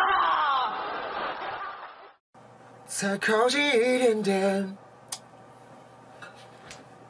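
A person's voice chuckling and laughing, then after a short break a drawn-out, wavering vocal sound about three seconds in, followed by a couple of light clicks.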